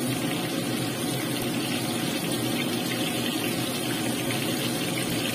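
Battered chicken pieces deep-frying in hot oil in a pan, a steady sizzling and bubbling.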